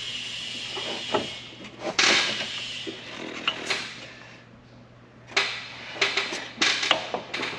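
PVC pipe being shoved and wedged against a transmission front pump through the bellhousing, knocking and scraping on metal in a string of irregular knocks. A steady hiss runs through the first couple of seconds.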